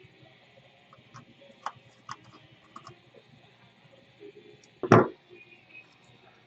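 Several light clicks and taps from tools and parts being handled while a speaker is taken out of an old metal tube-radio chassis, then one loud knock about five seconds in.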